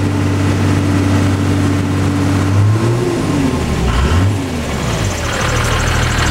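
Toyota Land Cruiser HJ61's 12H-T turbodiesel straight-six running steadily, heard from inside the cab. It is given two quick blips of throttle about three and four seconds in, the pitch rising and dropping each time, then settles back to idle.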